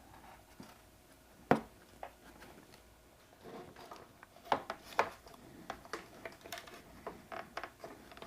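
Handling noise from a small light fixture being positioned against a motorcycle saddlebag panel during a dry fit: scattered light clicks and taps, the sharpest about a second and a half in and a cluster of them around the middle.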